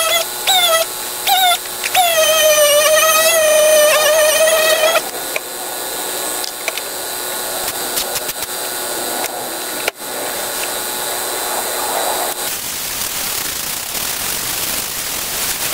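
A sliding, wavering melodic line of background music, like a bowed string, for about five seconds. Then a steady hiss of workshop noise.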